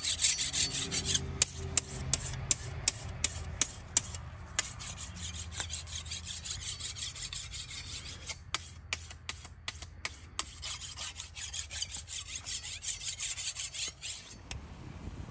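Flat metal file rasping along a machete's blade edge in repeated strokes: separate sharp scrapes at first, then a quicker steady run of strokes that stops about a second before the end.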